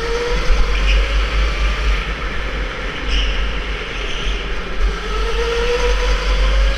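Electric indoor go-kart running at speed, its motor whine rising in pitch as the kart accelerates, near the start and again over the last two seconds, over a heavy low rumble and tyre and track noise.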